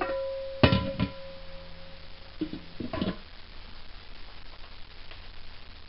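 Lid of a black enamelled roasting pan set onto the pan: a sharp metal clank about half a second in that rings on as a steady tone for about two seconds, then a few lighter clinks as the lid settles, around two and a half to three seconds in.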